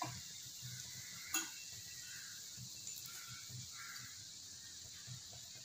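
Faint, steady sizzling of chopped mushrooms in hot oil and masala in a frying pan, with a single light click about a second and a half in.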